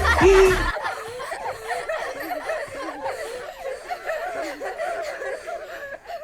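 A person laughing in a high voice, a long run of wavering giggles. Music plays at the start and cuts off under a second in.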